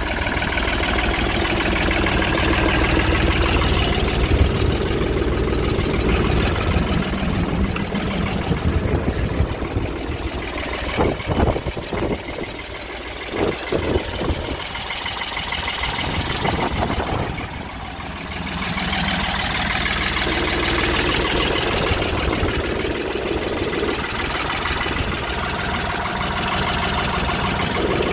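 Ford 3600 tractor's three-cylinder engine running steadily. Its sound dips briefly about halfway through, with a few short knocks.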